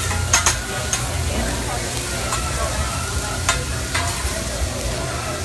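Steak, chicken and vegetables sizzling on a flat-top hibachi griddle, with a few sharp clicks of metal spatula and knife against the steel cooking surface.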